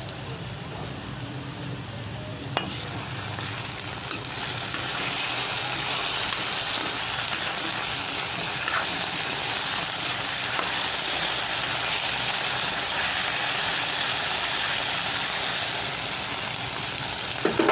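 Potatoes frying in hot oil, a steady sizzle that grows louder about four to five seconds in. There is a sharp click about two and a half seconds in and a knock near the end.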